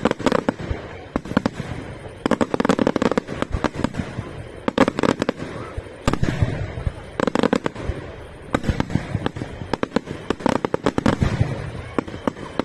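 Fireworks bursting: many sharp bangs in quick succession, coming in dense clusters about every two seconds.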